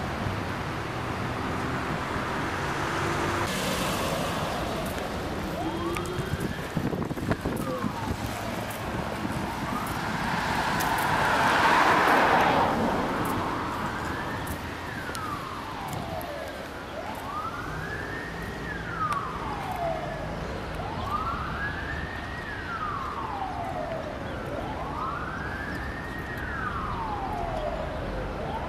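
Emergency-vehicle siren wailing, a slow rise and fall repeating about every three to four seconds, becoming clear partway in, over steady street traffic noise. A rushing noise swells and fades around the middle.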